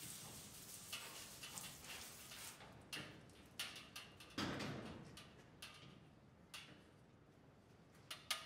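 Faint hiss of a hose spray nozzle, cutting off after about two and a half seconds, then scattered light knocks and clinks of metal brewing gear (copper coil, stainless pot) being handled, with a heavier knock about halfway through and a quick run of clicks near the end.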